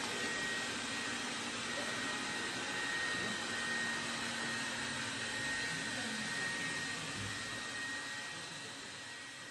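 Robot vacuum cleaner running as it travels across a wooden floor: a steady whir with a faint high whine, growing fainter near the end.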